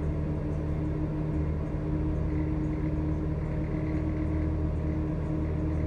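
Cummins C-Gas Plus natural-gas engine of a 2007 New Flyer C40LFR city bus running, heard from inside the passenger cabin: a steady low drone with a steady hum tone above it.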